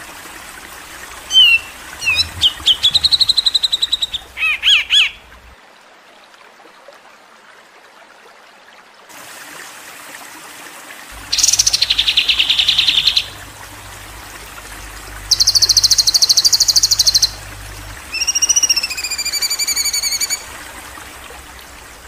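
Recorded harsh songbird calls strung together as a 'masteran' tutoring track: short chirps and a buzzy note, then after a pause of a few seconds fast rattling trills, and near the end a long note that slides downward.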